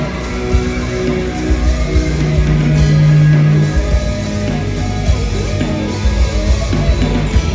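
A live rock band playing: electric guitar over bass and drums.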